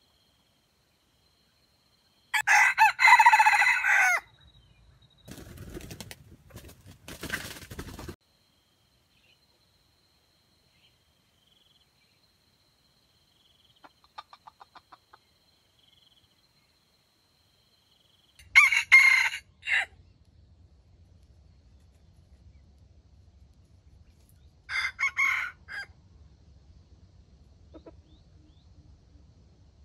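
Red junglefowl rooster crowing, four short crows in all: one about two seconds in, then three more spaced through the second half. Between them, softer clucking and rustling.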